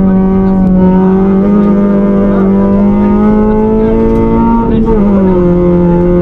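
Suzuki Swift rally car's four-cylinder engine heard from inside the cabin, running hard at high revs, its pitch climbing slowly and then dropping quickly about four and a half seconds in as it shifts up a gear.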